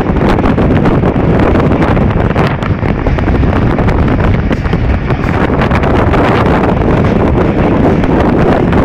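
Steady rush of wind buffeting the microphone held out of a moving train's window, over the rumble of the train running on the track.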